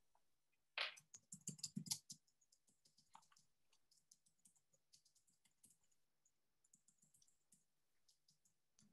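Computer keyboard and mouse being used: a quick run of keystrokes between about one and two seconds in, then faint, scattered clicks.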